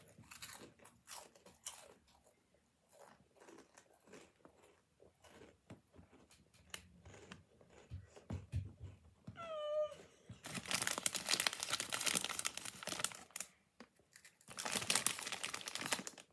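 Crunching and chewing on crunchy hot snacks, with many sharp crunches, and a short falling vocal whine just before halfway. Then a snack bag crinkling for several seconds, twice.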